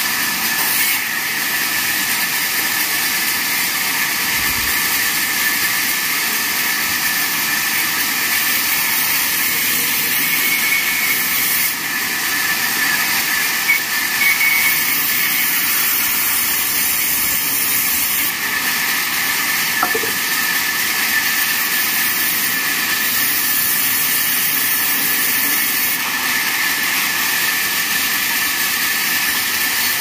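Large vertical band saw running and ripping wooden planks fed through the blade by hand: a loud, steady high hiss of cutting with a constant whine beneath it.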